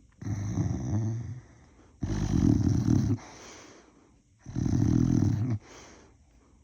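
Boxer dog snoring while asleep: three loud, rough snores about a second long each, evenly spaced, with quieter breathing between them.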